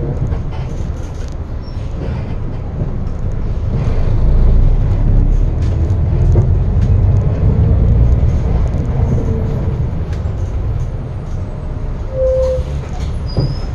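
Limousine bus driving along the road, heard inside the cabin: a steady low engine and road rumble, with a short faint tone about twelve seconds in.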